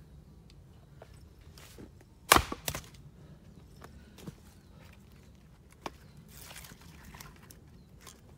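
An axe strikes and splits a small piece of black locust firewood standing on a chopping block, one loud crack about two seconds in, followed by the split pieces clattering down. After that come footsteps on leaf litter and lighter knocks of split pieces being tossed aside.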